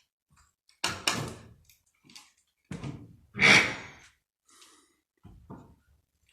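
Several separate knocks and scraping clatters of wooden roof beams being pulled apart and handled. The loudest comes about halfway through.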